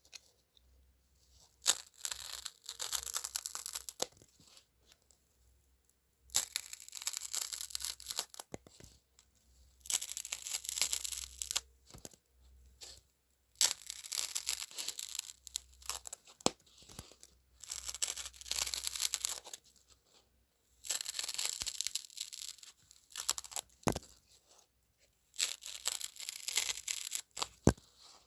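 Crisp, dry scratching in about eight bursts of one to three seconds each, with short quiet pauses between them. The sound is mostly high and hissy, with a few sharp clicks.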